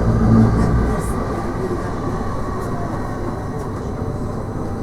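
Edinburgh tram (CAF Urbos 3) running along its line, heard from inside the car: a steady rumble of wheels on rail, heavier in the first second, with a faint electric whine slowly falling in pitch.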